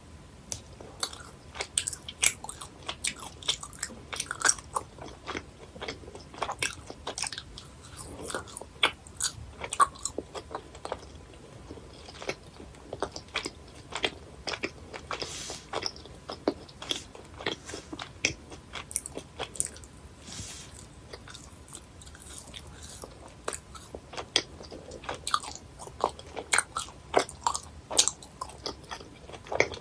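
Close-miked chewing and biting of chewy gummy jelly sweets: a steady run of irregular, sharp wet mouth clicks and smacks.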